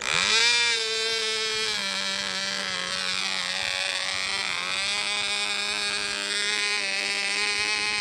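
Cox .020 Pee Wee glow-plug two-stroke model engine catching right at the start, climbing to speed within a fraction of a second, then running steadily at high speed with a buzzing tone that wavers a little in the middle.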